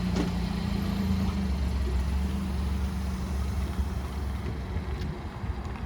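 GMC Canyon pickup's engine idling steadily just after being started.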